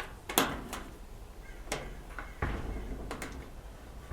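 Scattered sharp clicks and light knocks, five or so, from small metal parts being handled: the power cord's wire terminals and screws being bent and set on the dryer's terminal block.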